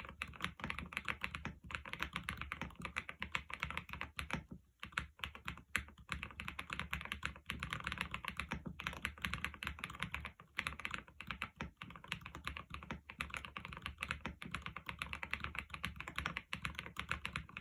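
Fast, continuous typing on an Epomaker TH80 Pro V2 mechanical keyboard fitted with Wisteria linear switches, with brief pauses about 5 and 10 seconds in.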